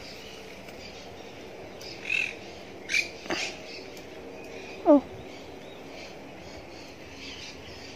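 Birds calling: a few short high chirps about two to three seconds in, then a louder call that falls in pitch about five seconds in.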